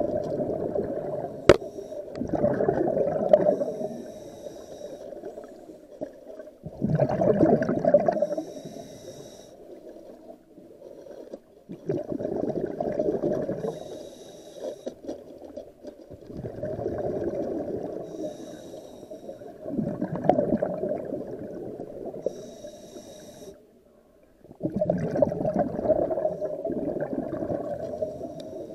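Scuba diver breathing through a regulator underwater: a bubbling rush of exhaled air about every four to five seconds, each followed by a short, higher hiss as the next breath is drawn through the regulator.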